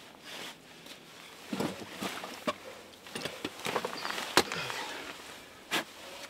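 Climbing gear clicking and scraping against rock in a run of short, sharp clicks, the loudest about four seconds in.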